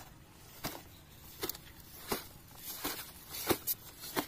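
Short crinkling crunches at a walking pace, about one and a half a second, as a 4-inch flat plastic lay-flat pipe is rolled up by hand and pushed along sand, mixed with footsteps on the sand.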